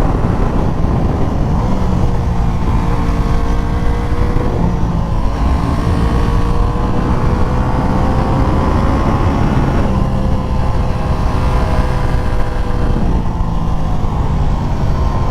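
Aprilia RS660's parallel-twin engine pulling under moderate throttle, its pitch climbing slowly and dropping back three times, about a third of the way in, two-thirds of the way in and near the end, over a heavy low rumble.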